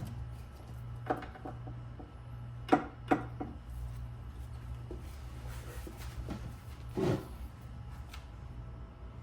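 Hands handling a truck door's wiring harness and connector: a few light clicks and rubs, one near the start, two close together about three seconds in and a longer one about seven seconds in, over a steady low hum.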